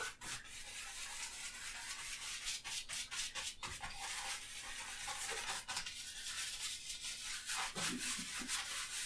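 A wide bristle paintbrush scrubbing oil paint onto a stretched canvas in quick, repeated rubbing strokes.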